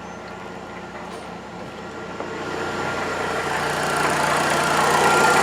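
Idling 1.6 8-valve EA111 flex engine of a VW CrossFox, a steady running sound that grows louder from about two seconds in. It carries the noise that the mechanic suspects comes from the water pump or the belt tensioner.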